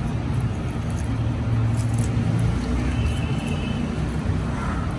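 Steady low rumble of road traffic in the background, with a faint high tone about three seconds in.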